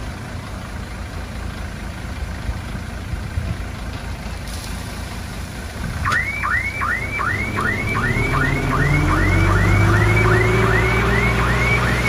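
Heavy diesel engine running. About halfway in, a reversing alarm starts, a rapid string of rising chirps about two and a half a second, while an engine grows louder and climbs in pitch.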